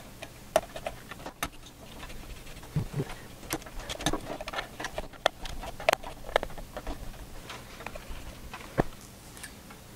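Irregular light clicks and taps of a small screwdriver and fingers on a motherboard's metal M.2 heat-sink covers as they are lined up and screwed down, with one sharper click near the end.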